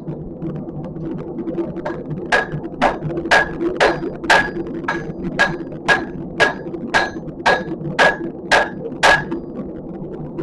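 Hand hammer striking a horseshoe on an anvil, about two blows a second with a ringing note on each. The blows start about two seconds in and stop near the end.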